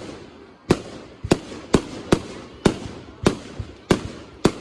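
Consumer fireworks going off in a rapid run of sharp bangs, about two a second, each trailing off in a short echo.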